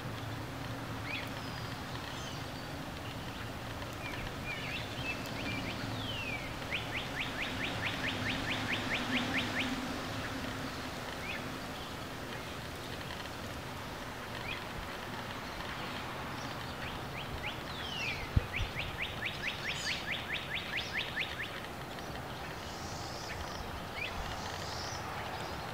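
A small bird sings a trilled song twice: a quick down-slurred note, then a rapid, even trill lasting about three seconds. Short high chirps come here and there, over a steady background hiss.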